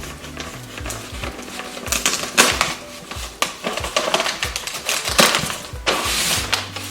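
Cardboard box and packaging being opened and handled, with irregular clicks, scrapes and rustling bursts, the loudest at about two and a half and five seconds in. Background music plays under it.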